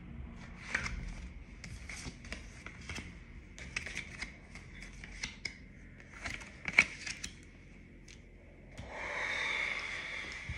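Tarot cards being shuffled and handled: a run of small, irregular snaps and clicks of card on card. A longer, soft rushing sound comes near the end.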